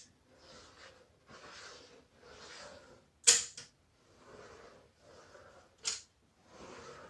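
Three sharp clicks, the loudest about three seconds in, a smaller one just after it and another near six seconds in, over soft, regular breathing close to the microphone.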